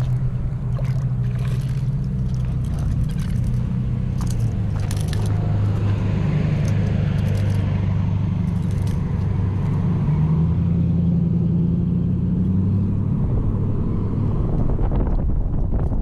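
An engine running steadily, its low hum shifting in pitch a few times, with scattered clicks and scraping in the first few seconds.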